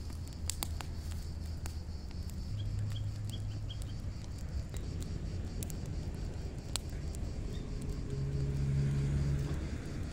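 Wood fire of stacked branches burning, with scattered sharp crackles and pops. Under it runs a low steady hum that swells near the end.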